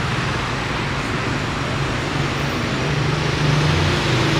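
City street traffic: a steady wash of passing cars, with a low engine hum that grows louder in the last second or so.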